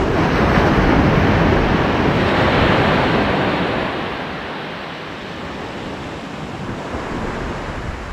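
Sea surf: a wave breaks and washes in, loudest over the first three seconds or so, then eases to a lower steady hiss. Wind buffets the microphone throughout.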